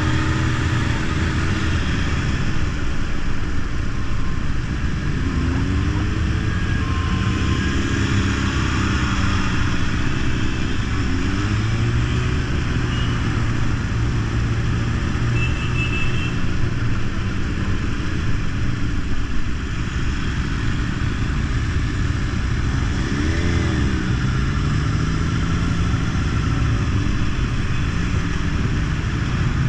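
Motorcycle engines running at road speed, heard from the rider's own sport bike among a group of other motorcycles, over a steady rush of noise. The engine pitch rises and falls several times with throttle changes.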